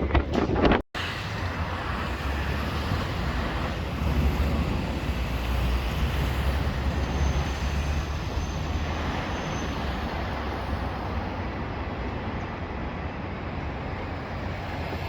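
Steady urban road traffic noise with a low rumble, swelling for a few seconds as vehicles pass, after a brief dropout about a second in.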